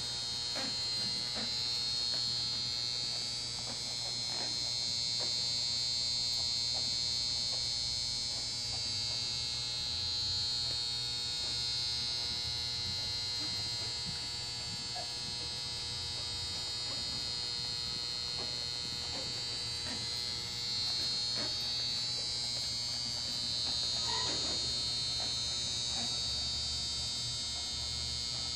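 Steady high buzzing hiss over a low hum, unchanging throughout, as from electrical equipment or fans.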